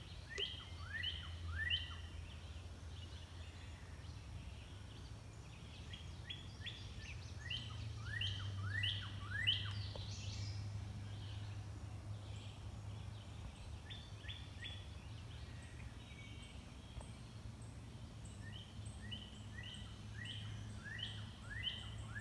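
A songbird singing phrases of repeated falling whistled notes, about three a second, in several bouts, over a low steady hum of the outdoor background.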